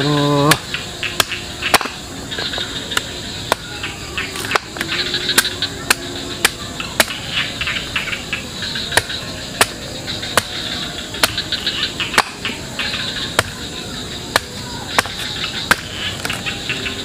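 A machete chopping into the husk of a green coconut in steady strokes, about two a second. A steady high insect chorus runs underneath.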